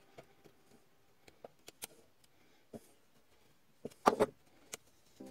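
Utility knife blade scraping and ticking faintly against a Briggs & Stratton recoil starter housing in scattered short strokes, then a brief, louder clatter of several knocks about four seconds in as the tool and housing are handled.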